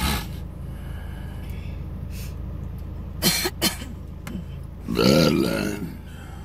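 A man's loud, throaty burp about five seconds in, after gulping soda from a can. Under it runs the steady low hum of the car, with two short sharp sounds a little after three seconds.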